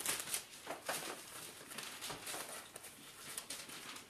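Soft, irregular rustling of paper pages being turned as a Bible passage is looked up.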